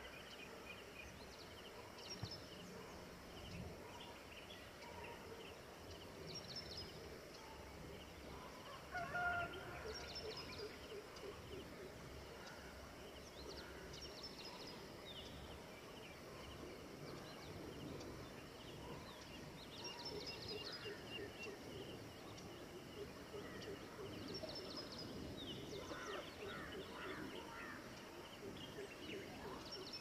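Dawn chorus of many birds calling and chirping, with short high descending chirps recurring every few seconds and a louder, lower call about nine seconds in.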